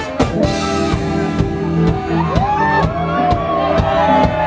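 Live rock band playing loudly: drums keeping a steady beat under electric guitar and saxophone, with a melody line that bends and slides in pitch.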